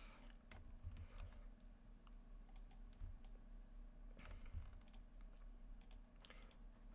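Faint, scattered clicks of a computer keyboard and mouse being worked, over a low steady hum.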